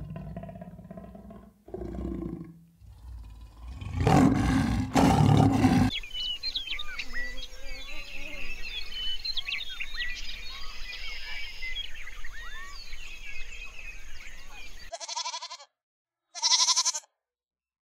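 A big cat growling and roaring, loudest about four to six seconds in. Then many small birds chirping for several seconds, and near the end goats bleating twice.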